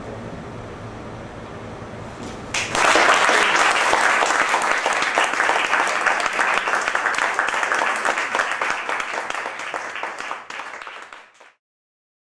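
Audience applause with dense clapping breaks out about two and a half seconds in after a quieter stretch, then stops abruptly shortly before the end as the recording cuts off.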